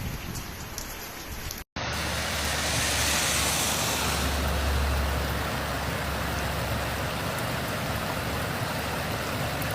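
Rain falling in a steady hiss. After an abrupt cut about two seconds in, a steady rushing noise continues with a low, even engine hum underneath.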